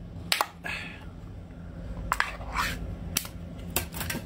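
Aluminium ring-pull lid being peeled off a clear plastic food can: a series of sharp metallic clicks and cracks with short scraping tears between them as the seal gives way.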